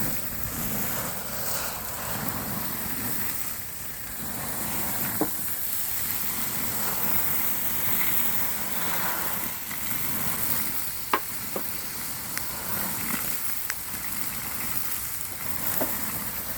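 Microwave oven burning in open flames, a steady sizzling crackle of melting plastic with a few sharp pops.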